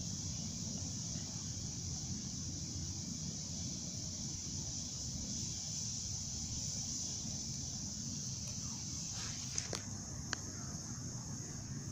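Wood fire burning in a metal fire pit, a steady low rush with a few sharp pops and cracks about ten seconds in. A steady high insect drone runs underneath and stops just before the pops.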